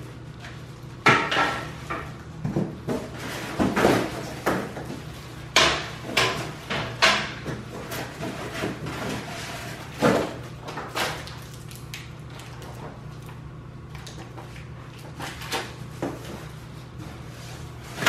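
Plastic-wrapped metal sewing-table parts being handled and pulled out of a large cardboard box: irregular knocks, clatters and rustling, busiest in the first half and sparser after, over a low steady hum.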